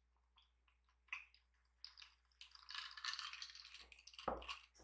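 Faint sounds of drinking iced soda from a glass: small clicks of ice and swallowing, then a soft fizzing hiss with tiny ticks from about two seconds in.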